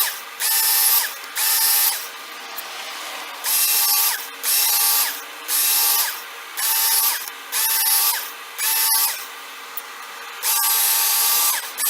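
Work Sharp Knife & Tool Sharpener's belt motor run in short bursts, about ten, one per sharpening pass; each burst is a steady whine whose pitch drops as it stops.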